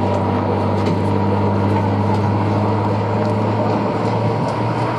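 Hawker Hurricane's Rolls-Royce Merlin V12 engine droning steadily as the fighter flies overhead, holding an even pitch and level.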